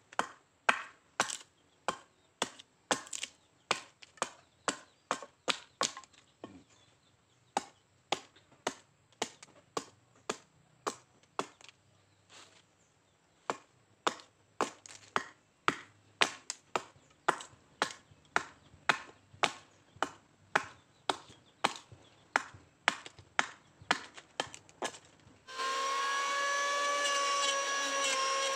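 A hatchet chops into a wooden plank, cutting notches to shape the timber, about two strokes a second with a short pause partway through. About three seconds before the end, an electric hand planer starts and runs with a steady high whine.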